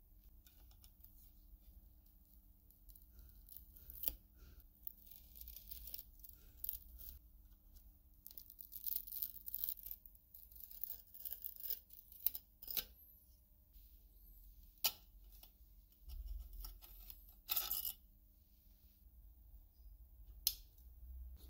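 Old hardened sealant being picked and scraped from around a lamp's glass lens with tweezers and a wooden stick: irregular scratchy rasping with scattered sharp clicks, and a few louder short scrapes.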